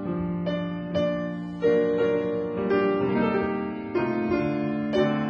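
Background music of slow piano notes, a new note or chord struck about once a second, each ringing and fading away.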